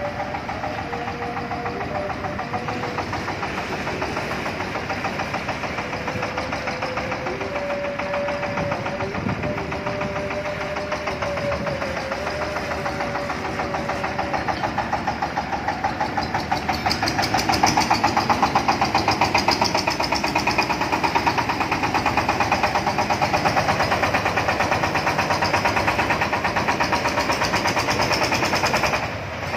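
Diesel engine of a mobile rice-milling vehicle running with a rapid knocking beat, growing louder about 17 seconds in as the vehicle drives up close.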